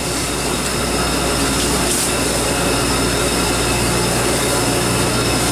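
Party fishing boat's engines running steadily under way, a constant low drone mixed with wind and water rush.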